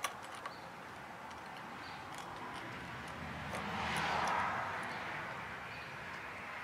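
A few small metallic clicks as a locknut is threaded by hand onto a 1/2-inch cable connector in a metal electrical box knockout. About three seconds in, a rush of noise swells to a peak and then fades.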